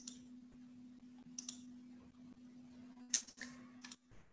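A few faint, short computer clicks, some in quick pairs, over a low steady hum that stops about four seconds in.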